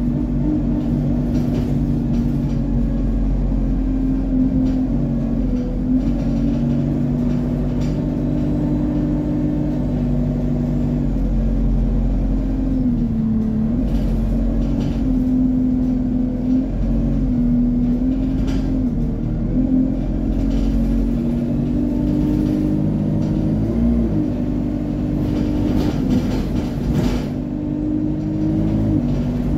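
Single-deck bus running, heard from inside the passenger saloon: a steady engine and drivetrain rumble with a hum whose pitch dips and rises a few times.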